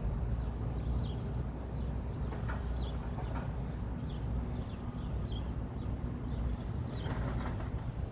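Small birds chirping in short calls over a steady low rumble, with a few footsteps crunching on track ballast.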